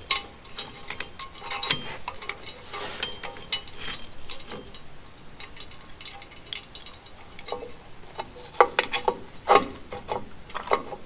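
Small steel drum-brake parts clicking and rattling against the backing plate as a hold-down pin and bracket are worked into place on a brake shoe by hand. The clicks come irregularly, with a louder cluster of knocks near the end.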